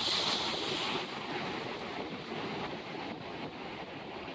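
Sea wave breaking and splashing over the rocks of a jetty, loudest in the first second, then surf foaming and washing back among the rocks.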